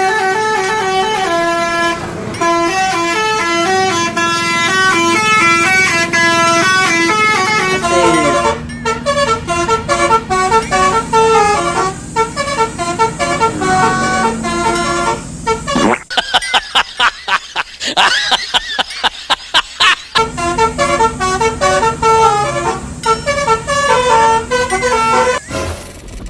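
Indonesian 'telolet basuri' multi-tone musical bus horn playing a tune in quick stepped notes. About two-thirds of the way through it breaks into a few seconds of rapid, high-pitched pulsing honks, then the tune resumes.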